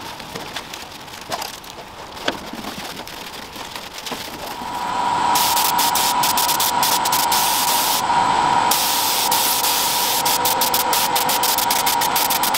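A few faint clicks, then from about four and a half seconds in a compressed-air gravity-feed spray gun sprays paint onto the steel Jeep body in a loud, steady hiss. The hiss thins briefly around eight seconds in.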